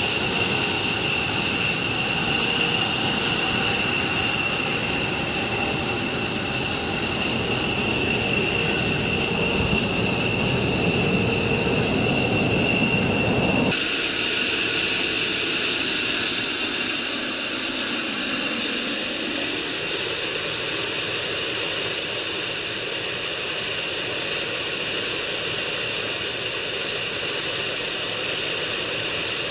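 Jet aircraft engine running with a steady high-pitched whine over a continuous rush. About 14 seconds in, the sound changes abruptly: the whine shifts pitch and the low rumble drops away.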